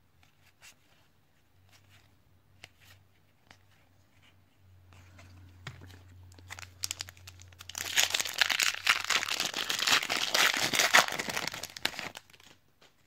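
Foil wrapper of a Topps WWE trading card pack crinkling and tearing as it is ripped open: dense, loud crinkling for about four seconds in the second half. Before it come a few soft clicks of cards being handled.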